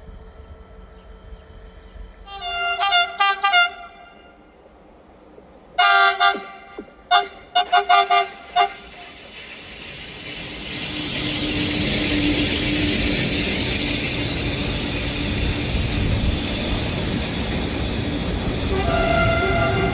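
Train horn giving several short toots in two groups, about two and six seconds in. Then the noise of a train running past on the rails builds up from about ten seconds in and stays loud.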